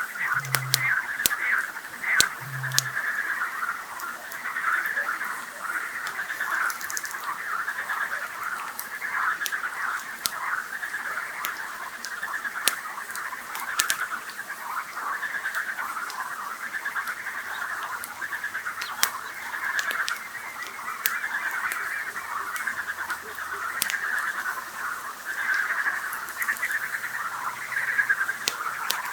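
Dense, continuous chorus of calling frogs, with a campfire crackling in sharp pops throughout. Near the start, two deep, short booms about two seconds apart, the call of a Eurasian bittern.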